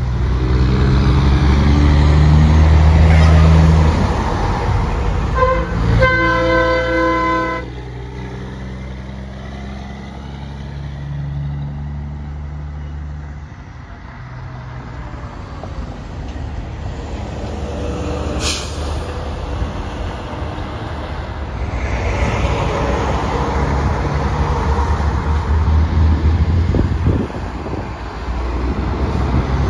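Diesel semi-trucks passing on a highway, with a truck's horn sounding about six seconds in: a short toot, then one blast of about a second and a half. The engines drop away in the middle and grow louder again near the end as more trucks pass.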